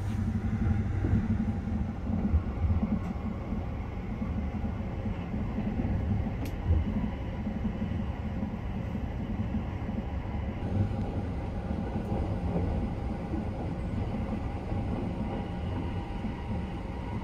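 Sunrise Seto sleeper train, a 285 series electric multiple unit, running along the line, heard from inside the compartment as a steady low rumble.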